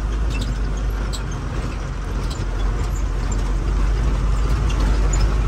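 Truck running over a rough, partly off-road single-lane track: a steady low engine and road rumble with scattered light clicks and rattles.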